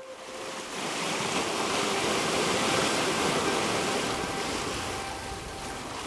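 Sea waves washing: a steady rush of water that swells up over the first second and holds.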